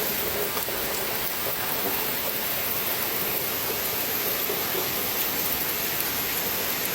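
Steady rain falling, an even hiss with a few faint light clicks.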